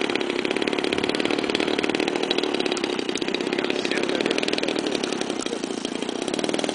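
Small model-airplane engine running steadily, a fast buzzing chain of firing pulses at an even speed.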